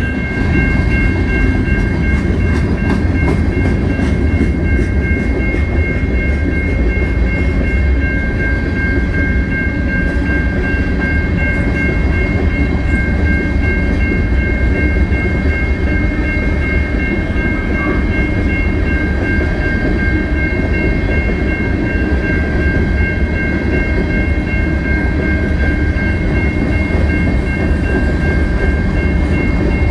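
Freight train of railcars rolling past, a steady low rumble of wheels on rail, with steady high ringing tones over it.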